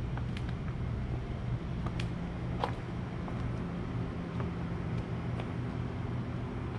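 An engine running steadily with a low hum, with a few faint clicks over it.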